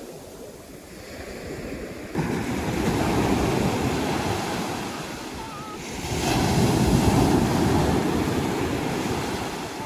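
Sea waves washing onto a beach, surging about two seconds in and again, louder, about six seconds in.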